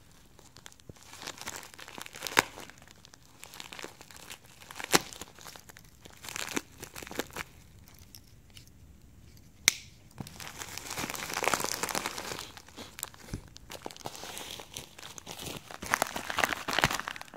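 Plastic mailer envelope slit with a pocket knife and torn open, the plastic crinkling and tearing, with a few sharp snaps along the way. Longer stretches of crinkling in the second half.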